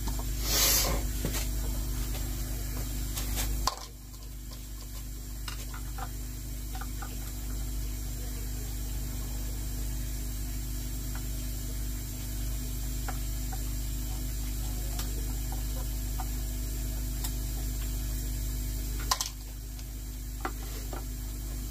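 Steady low electrical hum from running equipment, dropping a little quieter about four seconds in and coming back up near the end, with faint scattered clicks and a short hiss about half a second in.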